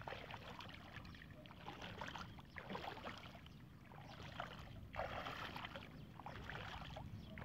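Bare feet wading through shallow floodwater, splashing irregularly with each stride.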